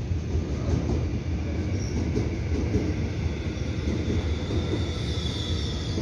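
Korail Line 1 electric multiple unit running slowly into the station, heard from inside the carriage: a steady rumble of wheels on track. A faint high whine grows stronger near the end as the train slows to stop at the terminus.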